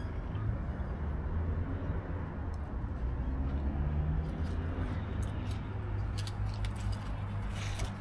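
Steady low rumble of nearby traffic, with light clicks and crinkles from eating wrapped burritos, mostly in the last few seconds.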